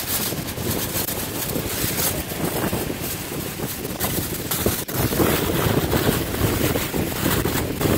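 Wind buffeting the microphone: a gusty, rumbling rush with a few brief crackles.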